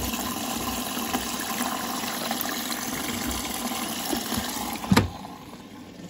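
Water rushing into a Bosch washing machine's detergent drawer as the machine takes in water, a steady flow. About five seconds in there is one sharp knock, and the water sound falls away after it.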